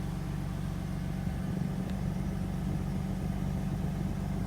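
2007 BMW 328i's straight-six engine idling steadily.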